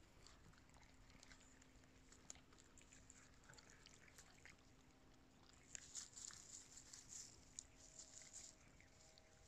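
Near silence, with faint scattered ticks and clicks that come thicker from about six seconds in.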